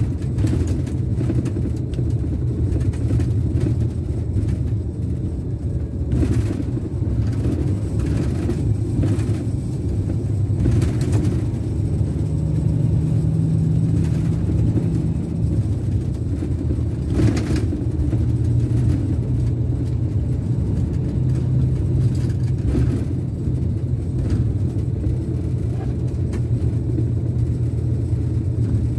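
Scania K410 coach's rear-mounted DC13 inline six-cylinder diesel running at road speed, a steady low drone heard from inside the upper deck. A few short knocks or rattles cut through it about six, eleven and seventeen seconds in.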